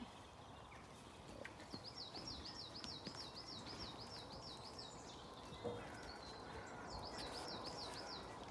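A small songbird singing a quick run of repeated high notes, about four a second, for several seconds, then a shorter run near the end, over faint outdoor background noise.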